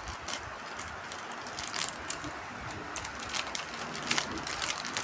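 Packaging and small plastic action-figure parts being handled, with irregular small clicks over a light rustle.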